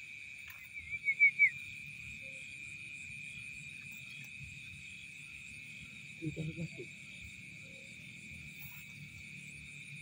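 Night insects in a rice paddy trilling steadily at one high pitch. About a second in, something gives four quick high chirps, and a few brief low sounds follow around six seconds in.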